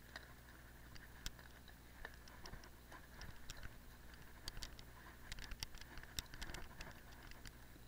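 Light, irregular clicks and rattles from a cyclocross bike and its handlebar-mounted camera jolting over bumpy frozen grass, more frequent in the second half, over a faint steady low hum.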